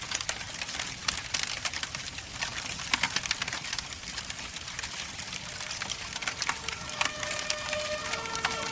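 Dense crackling and popping. About seven seconds in, several steady tones at different pitches start up and switch back and forth over it.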